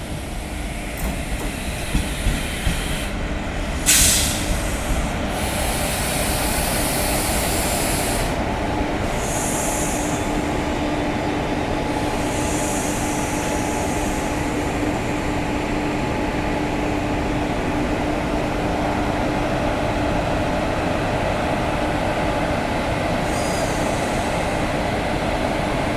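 Train hauled by a WAP-7 electric locomotive running on the track: a steady rumble of wheels and rails with a sharp click about four seconds in and several short hisses, with a faint steady hum joining about nine seconds in.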